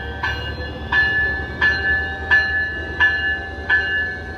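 Locomotive bell on an arriving Amtrak Siemens SC44 Charger ringing steadily, a strike about every 0.7 s, over the train's low rumble.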